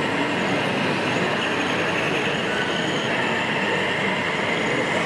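Steady din of a busy indoor exhibition hall, with a faint high whine over it.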